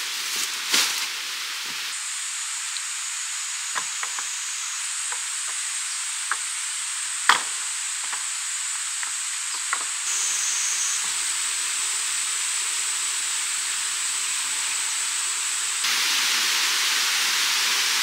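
Outdoor forest ambience: a steady high hiss with a thin, steady high-pitched tone over it, broken by a few light clicks and knocks. The hiss changes abruptly several times and grows louder near the end.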